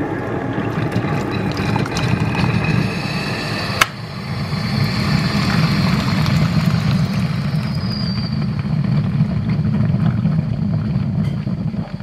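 Breville hot water dispenser running steadily, its pump humming as a stream of hot water pours into a mug over a teabag. There is a single click about four seconds in.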